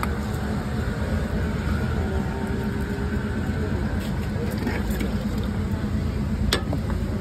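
Steady low rumble of street traffic, with a sharp metallic clink about six and a half seconds in and a few fainter ones earlier, fitting a steel ladle knocking against a steel pot and bowl.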